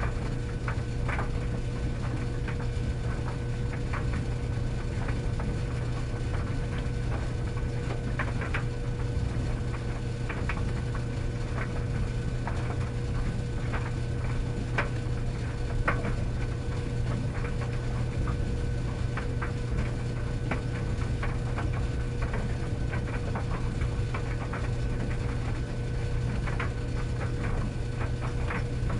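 Tumble dryer running: a steady low motor hum with a constant tone above it, and irregular light clicks and knocks of the load tumbling in the drum.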